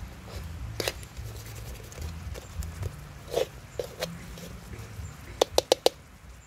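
Metal ladle stirring and scraping in an iron wok of bubbling sauce, with scattered clicks and a quick run of four sharp knocks near the end.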